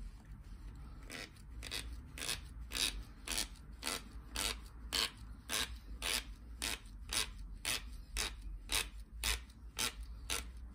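Cloth rubbed back and forth over the end of a pool cue, about two strokes a second, burnishing the leather tip.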